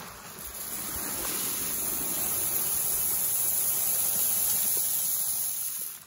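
Shelled dried corn kernels pouring from one woven sack into another: a steady rushing hiss that swells over the first second and stops abruptly near the end.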